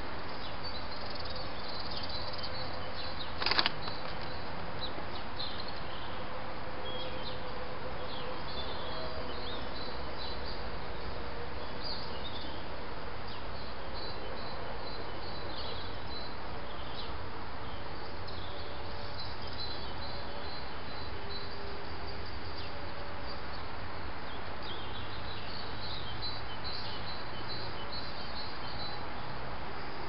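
Garden birds chirping, short high calls repeated on and off over a steady hiss of trail-camera microphone noise. One sharp knock about three and a half seconds in.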